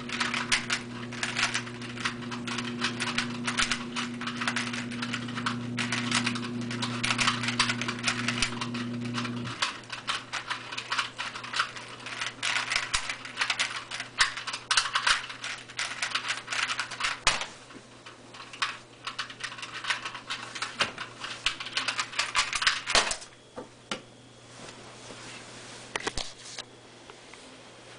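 A 3x3 Rubik's cube turned fast in a speedsolve: a dense, continuous clatter of plastic layers clicking and snapping. It stops with a single sharp knock about 17 seconds in, and only scattered clicks follow. Under the first half runs a low steady hum that cuts off about 9.5 seconds in.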